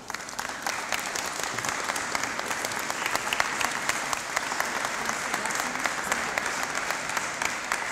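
Applause from a gathered group of people, many hands clapping at a steady level.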